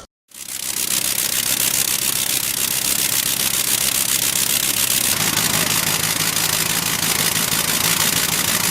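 A vehicle engine running steadily under a loud hiss, its low hum rising a step about five seconds in.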